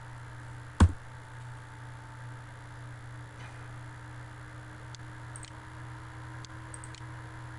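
Computer mouse and keyboard clicks over a steady low hum: one loud, sharp click about a second in, then a few faint clicks scattered through the rest.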